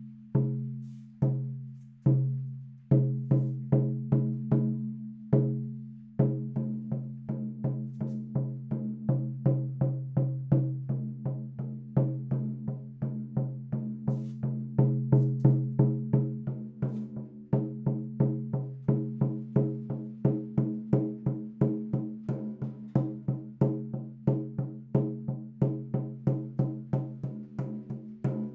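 16-inch steer-skin shaman frame drum struck with its sound-healing beater. It starts with a few slow beats, then speeds up into a steady beat of about three strokes a second, each stroke ringing with a deep tone. The skin is at about 50% humidity.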